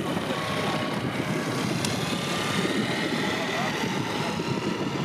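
Outdoor shoreline ambience: a steady low rumble with faint, indistinct voices.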